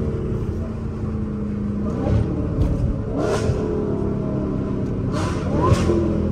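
Dodge SRT's V8 engine running under throttle, heard inside the cabin, rising in pitch a few times as it pulls. There are a couple of short knocks, about three seconds in and near the end.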